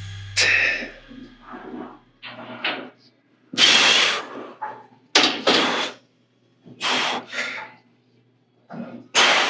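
A person's sharp, forced breaths, exhaled in short noisy bursts, often two at a time, with gaps between them, as he strains through exercise reps.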